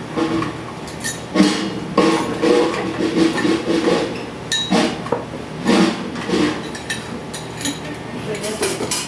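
People talking in the background, with scattered clinks of glasses and dishes.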